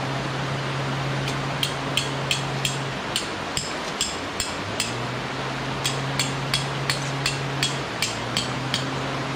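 Hammer blows on metal tent pegs: two runs of about eight sharp, ringing strikes each, about three a second, with a short pause between them.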